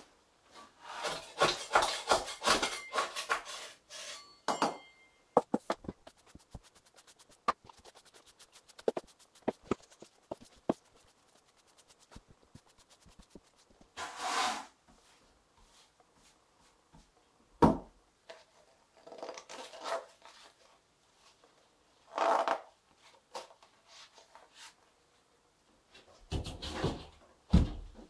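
A hand scraper rasping across the shower floor board in quick strokes. Then come scattered clicks and knocks, a few short broom sweeps and a single sharp thump.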